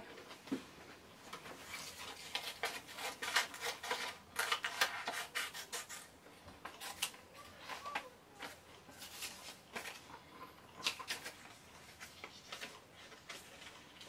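Paper rustling and crackling as hands shift and lay cut-out magazine pieces onto printed photos on a cutting mat, in short irregular handling noises.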